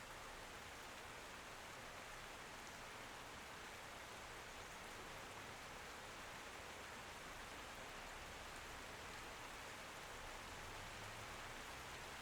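Steady rain falling: an even hiss without separate drops standing out or any thunder.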